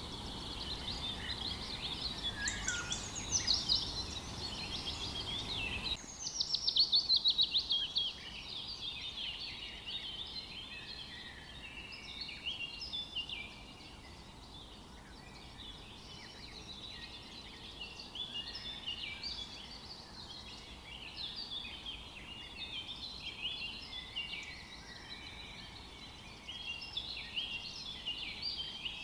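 Several songbirds singing over one another, a dense mix of chirps, whistles and trills, with a loud rapid trill about six seconds in. Under them a steady rush, likely a flowing river, loud at first and dropping away abruptly about six seconds in.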